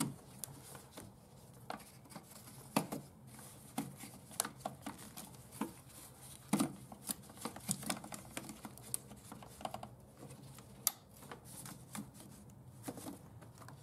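Gloved hands working rubber hoses and plastic clips in a car's engine bay: irregular clicks, taps and rustles, the sharpest about 3, 6.5 and 11 seconds in, over a faint steady low hum.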